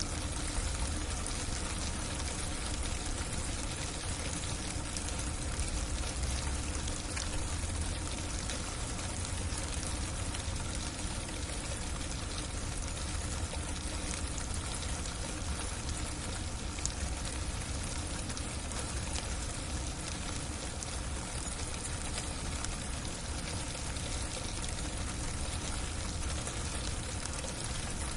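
Freezing rain falling steadily on a roof: a dense, even hiss of many small ticking hits over a low rumble.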